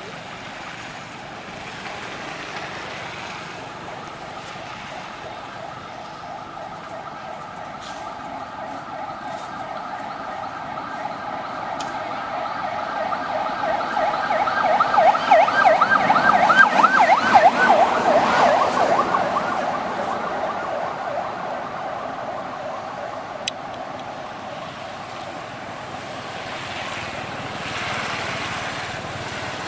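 A siren draws near and passes: its wail grows louder, warbles rapidly at its loudest about halfway through, then fades away. A single sharp click comes a few seconds after it.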